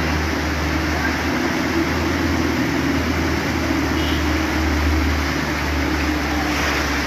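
Light truck's engine droning steadily as it ploughs through deep floodwater, with the steady rush and splash of muddy water pushed aside by its wheels.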